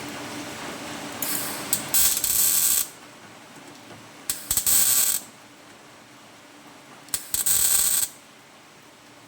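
MIG welder putting three short tack welds onto sheet steel: each starts with a few sharp arc strikes, then a steady crackling sizzle, with the longest burst first and short pauses between.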